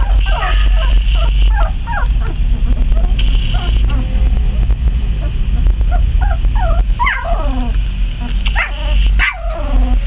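Litter of 20-day-old Border Collie puppies whimpering and squeaking: many short, high cries that fall in pitch, overlapping several a second, with a few louder yelps about seven and nine seconds in. A steady low rumble runs underneath.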